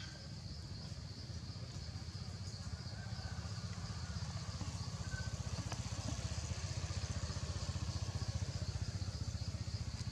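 A small engine running with a low, rapid pulse, growing steadily louder as it comes closer, over a steady high buzz of insects.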